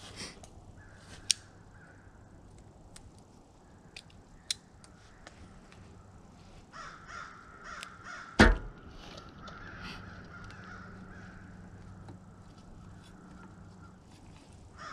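Crows cawing repeatedly in the surrounding woods, most of all through the second half. A few sharp clicks and one loud knock about eight and a half seconds in come from handling the feeder timer and its wiring close by.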